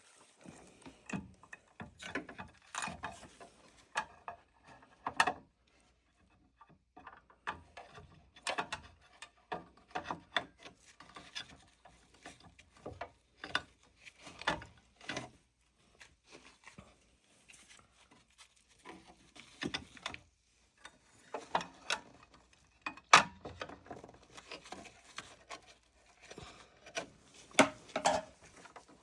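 Irregular clicks, knocks and rubbing of a treadmill motor controller board and its mounting hardware being handled and fitted into place by hand, with short pauses between bursts of handling.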